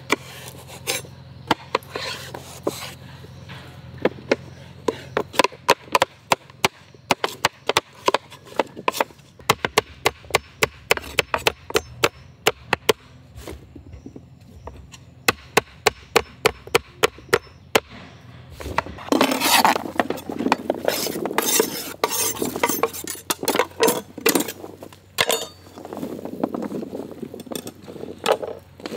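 Chef's knife chopping bottle gourd on a wooden cutting board: a run of sharp knocks, several a second, as the blade strikes through the flesh onto the board. In the last third the knocks give way to a denser, rustling clatter.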